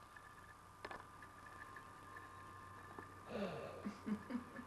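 Quiet room with a faint steady hum and a single click about a second in, then a few short vocal sounds in the last second and a half.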